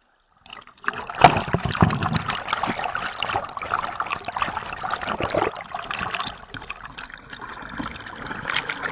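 Mountain creek water flowing and babbling over rocks close by, starting about a second in.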